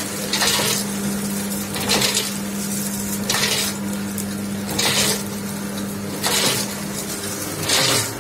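Automatic vertical pouch packaging machine running with a steady motor hum and a short metallic clatter about every one and a half seconds, one for each seal-and-cut cycle that turns out a filled pouch.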